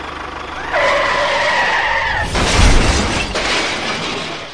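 Vehicle skidding sound with rough motor-like running noise. About a second in, a high squeal holds for about a second and a half, then a heavy thud with a rush of noise follows before it fades.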